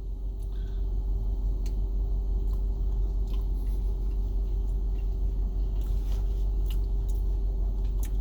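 A person chewing a mouthful of food, with faint small clicks of the mouth, over a steady low rumble and a constant hum.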